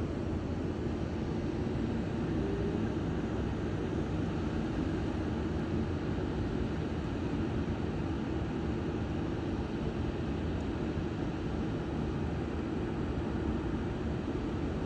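Steady low rumbling background noise, even throughout, with no distinct sounds standing out.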